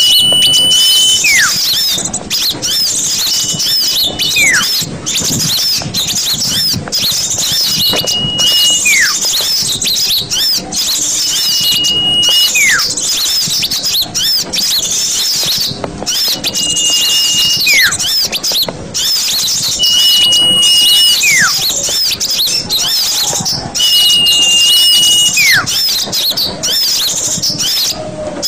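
Bird-lure recording of a flock of small birds chirping and chattering continuously, with a clear whistle repeated about every four seconds: a short steady high note, then a note sliding downward.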